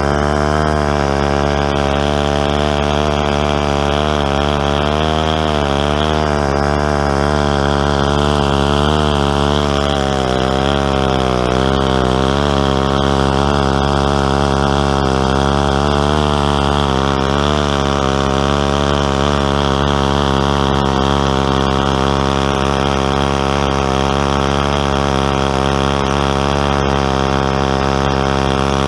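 Stihl 090 two-stroke chainsaw running at steady high revs under load in a chainsaw mill, its chain ripping lengthwise through a tulip poplar log. The pitch wavers a little as the saw works through the cut.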